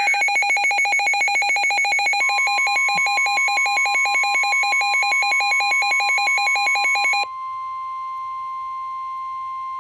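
Emergency Alert System attention tones: a loud, rapidly pulsing electronic alarm tone. A steady tone joins it about two seconds in. The pulsing stops about seven seconds in, leaving the steady tone sounding alone.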